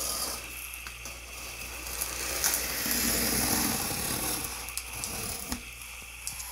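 A scissor blade dragged along the packing tape on a cardboard box, slitting the seam open: a scratchy cutting sound with a few sharp clicks, loudest in the middle stretch.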